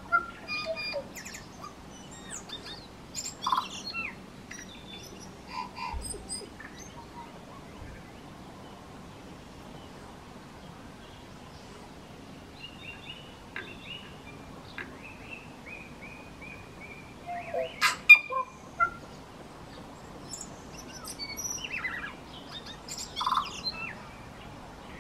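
Tui singing in bursts of mixed notes, sharp clicks and whistles, including one held note, with a quiet stretch in the first half and the loudest burst a little past halfway.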